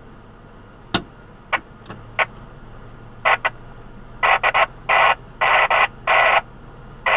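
Two-way radio in a 4x4's cab: a few sharp clicks, then short choppy bursts of static or broken transmission, the last the longest, over a faint steady engine hum.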